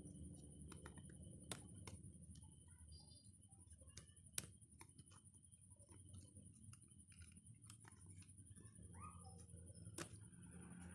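Near silence broken by a few small sharp clicks and taps of metal tweezers against a phone's circuit board and parts, the loudest about four and a half seconds in, over a faint steady high whine and low hum.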